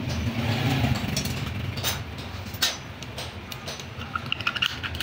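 Hand tools clicking against a gear motor's aluminium cooling fan and shaft circlip as the fan is pried off, ending in a quick run of ringing metallic clinks, over a low steady rumble that dies down after the first second or so.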